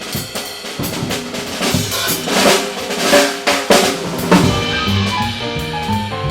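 Jazz drum kit playing a break, with rapid snare, rimshot and bass-drum strikes under cymbals. A horn line comes back in over it in the second half.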